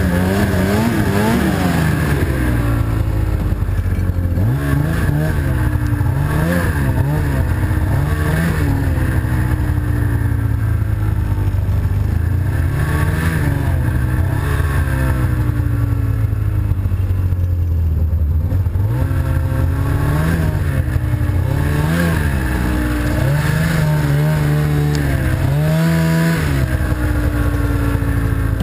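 Snowmobile engine under load in deep powder, its pitch rising and falling over and over as the throttle is worked, with a steadier stretch of running in the middle.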